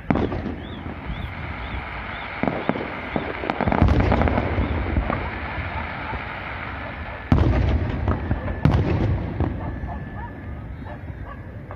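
Fireworks display: a string of aerial shells bursting with booms and crackle between them, the loudest bursts about four seconds in and again around seven to nine seconds.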